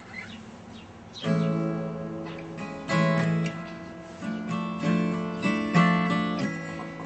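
Acoustic guitar strummed by hand, starting about a second in. The chords ring out and are re-struck every half second to a second.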